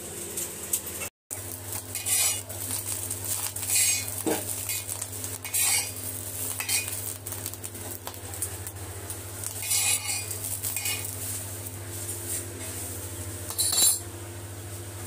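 A metal utensil scraping and clinking against a frying pan as pieces of egg omelette fry, in short bursts every couple of seconds, with a light sizzle over a steady low hum. The sound cuts out for an instant about a second in.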